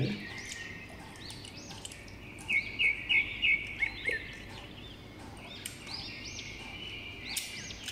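Small birds chirping over and over, many short rising-and-falling chirps, with a quick run of about four louder chirps around the middle.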